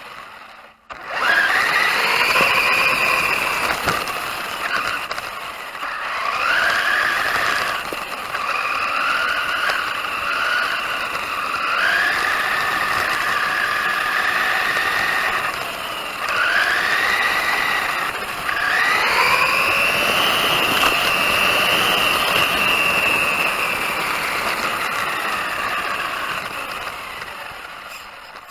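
FTX Outlaw 1/10 RC car's brushless electric motor and drivetrain whining under throttle. The pitch sweeps up sharply with each burst of speed, about four times, and sags as it eases off in between.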